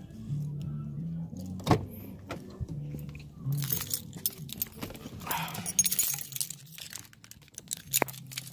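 Keys jangling and a car door being opened, with a sharp latch click about two seconds in, then rustling and clatter as someone climbs into the driver's seat. Music plays in the background.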